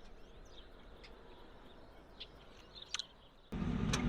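Faint bird chirps over a quiet morning background, then about three and a half seconds in a sudden switch to a vehicle engine's steady low running.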